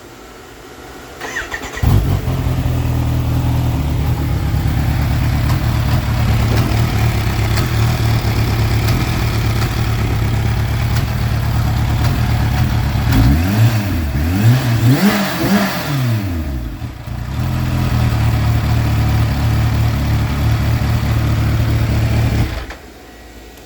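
Kawasaki Ninja H2's supercharged inline-four idling with a rhythmic clanking that shows only at idle, not when accelerating or shifting. Its cause is unknown to the owner. The engine comes in about two seconds in, is revved up and down a few times midway, settles back to idle, and cuts off shortly before the end.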